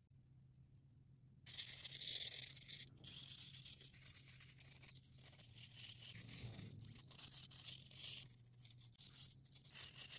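Folded sandpaper rubbing back and forth on a small walnut carving, a faint continuous scratchy rasp that starts about a second and a half in. A steady low hum runs underneath.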